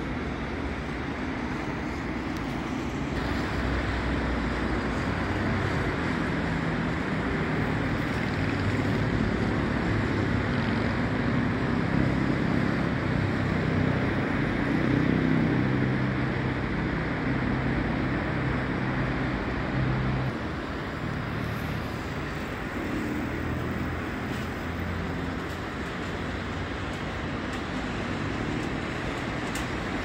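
Steady road traffic on a busy city avenue: engine hum and tyre noise from passing cars and buses. The low engine drone grows heavier for a while and eases off about two-thirds of the way through.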